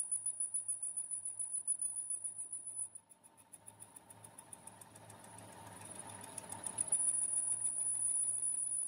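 Metal lathe turning down a crankshaft: a steady high-pitched whine from the cut pulses with each turn over a low machine hum. About three seconds in the whine drops away to a rough scraping with rapid clicks, then returns about seven seconds in.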